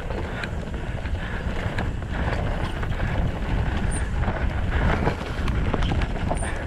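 Wind buffeting the microphone of a mountain bike riding down a dirt forest singletrack, with tyre noise and scattered knocks and rattles from the bike over the ground.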